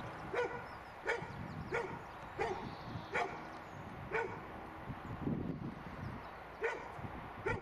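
A dog barking repeatedly in short, sharp barks, about eight of them, with a pause of a couple of seconds in the middle.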